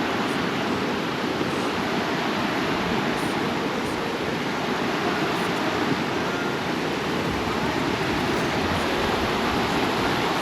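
Creek water rushing steadily under a footbridge, an unbroken even roar.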